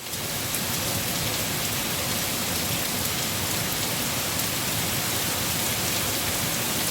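Steady rain falling: a dense, even hiss of drops with faint individual ticks of drops striking surfaces.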